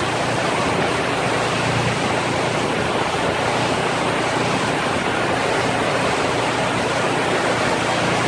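Heavy rain pouring down in a storm, a loud steady hiss.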